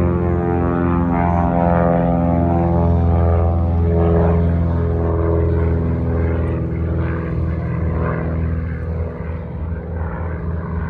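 Light propeller airplane climbing away after takeoff: a steady engine-and-propeller drone that drops slightly in pitch as the plane passes and fades near the end.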